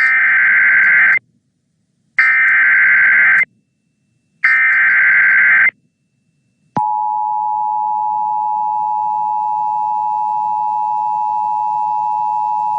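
Emergency Alert System broadcast opening: three bursts of SAME header data tones, each about a second long with about a second's silence between them. About seven seconds in, the steady two-tone EAS attention signal (853 and 960 Hz) starts and holds. The sequence marks the start of an emergency alert, here a severe thunderstorm warning.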